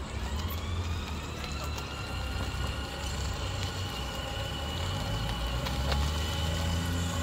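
Electric motors and gearboxes of a children's battery-powered ride-on buggy whining as it drives, the whine rising in pitch over the first second or so as it speeds up and then holding steady, over a steady low rumble.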